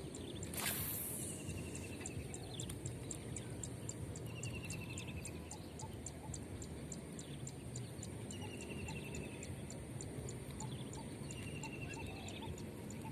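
Outdoor ambience with insects ticking rapidly and evenly throughout, and a short falling trill from an animal call heard four times. A brief swish sounds about a second in.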